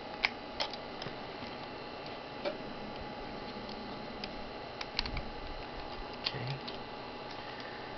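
Scattered small clicks and taps of a Voltron toy's plastic and metal parts being folded and fitted together by hand, a few sharp ticks over a steady background hiss.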